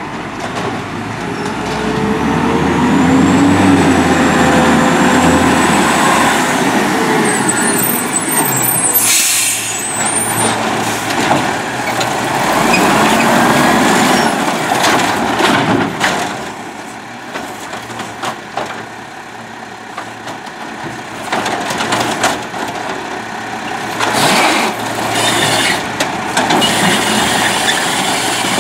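Peterbilt 320 garbage truck's diesel engine running as the truck pulls up, with a sharp air-brake hiss about nine seconds in. Then the Amrep Octo automated side-loader arm's hydraulics whine as it lifts a cart, dumps it into the hopper and sets it back down, with several knocks of the cart against the arm and hopper.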